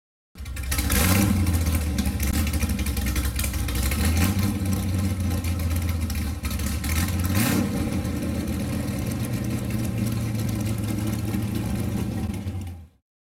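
Car engine running with a deep, steady rumble at idle, revved briefly about a second in and again a little past the middle; it cuts off suddenly near the end.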